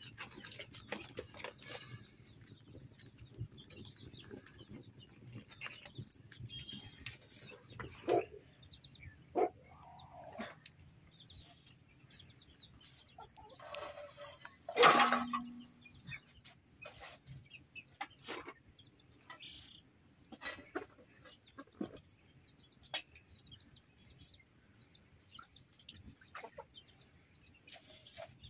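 Chickens clucking now and then over scattered clinks and knocks of steel pots and bowls being handled. A wood fire crackles in a mud stove at the start, and there is one louder sound about halfway through.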